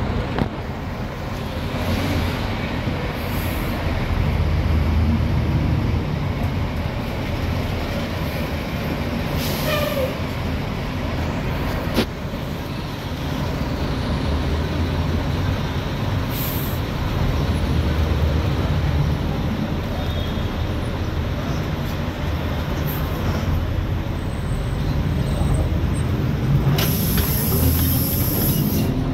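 City bus heard from inside the cabin: the engine runs with a steady low rumble as the bus idles and pulls away. Short air hisses from the brakes come about ten seconds in and again partway through, with a longer hiss near the end, and there is a single sharp click in between.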